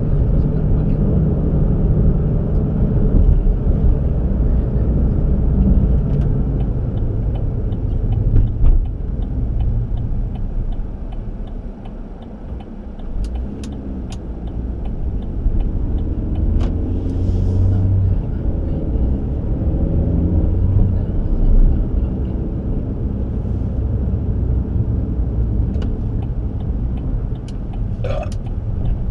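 Steady low rumble of a car driving, with road and engine noise. It eases off about twelve seconds in, then builds back up.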